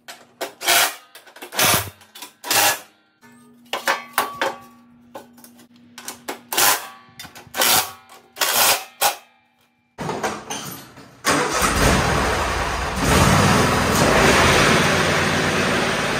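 Cordless drill-driver run in many short bursts, driving the mower-deck guard bolts back in. About eleven seconds in, the Cub Cadet lawn tractor's engine starts and runs steadily, growing louder about two seconds later.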